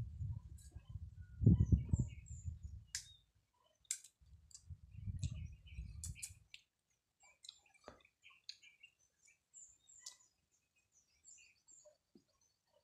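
Small birds chirping here and there, with scattered sharp clicks and knocks from handling fruit and knives. Two spells of low rumble come in the first six seconds or so, the louder one about a second and a half in.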